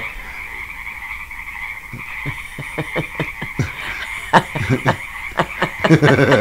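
A chorus of frogs calling steadily in a high, dense trill. From about two seconds in, it is joined by a run of sharp, irregular clicks and knocks that grow louder toward the end.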